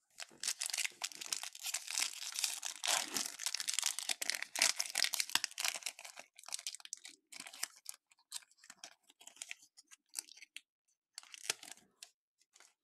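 Foil wrapper of a Topps Chrome Update baseball card pack being torn open and crinkled in the hands: a dense crackling for the first half, then sparser rustles as the cards are handled.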